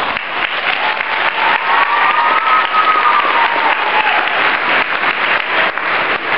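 Spectator crowd applauding in a large hall: dense, steady clapping.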